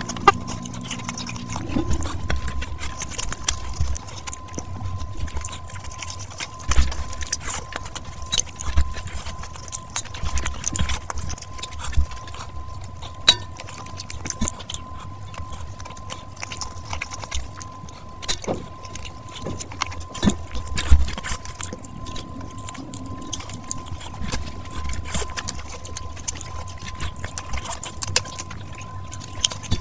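Close-miked eating sounds from a person eating fish biryani and fried fish by hand: irregular wet chewing and mouth smacks with sharp clicks, mixed with fingers squishing rice and tearing fish.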